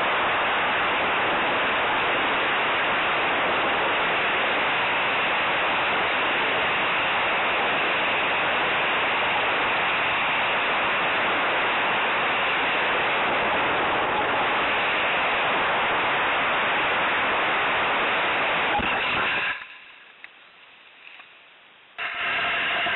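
Steady rushing wind noise on the model rocket's onboard camera microphone as the rocket falls. It cuts off suddenly about 19 seconds in when the rocket lands, leaving a quiet stretch. Near the end there is loud handling noise as a hand grabs the rocket's fin and lifts it.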